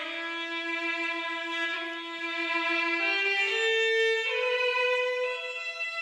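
Background music: a violin playing a slow melody of long held notes, stepping up in pitch about halfway through.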